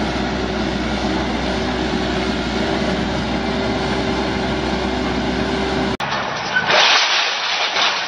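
Diesel engine of a Case backhoe loader running steadily, with a constant hum and one steady tone. About six seconds in it cuts off suddenly and gives way to a rougher, noisy rush of sound.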